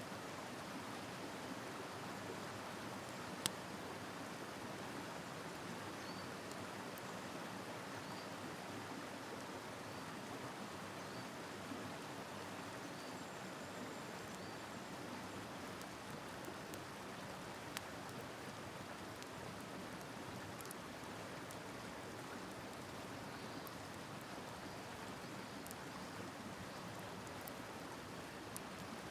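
Steady rushing of a river, with a few sharp pops from a campfire; the loudest pop comes about three and a half seconds in.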